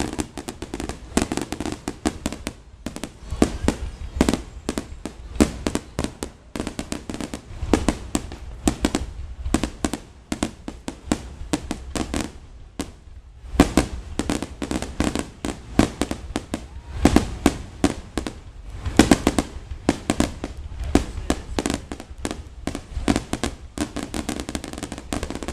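Fireworks display going off in rapid succession: a dense run of bangs and crackles, several a second, with a short lull about 13 seconds in.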